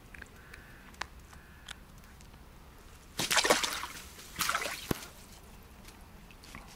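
Water splashing and sloshing in two short bursts, about three and four and a half seconds in, as a freshly caught crucian carp is handled in the water. A few light clicks come before.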